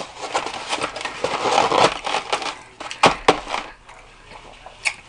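Styrofoam takeout clamshell container being handled, its foam rubbing and squeaking in a dense crackle for about two seconds. Then two sharp knocks a little after three seconds in, and a lighter click near the end.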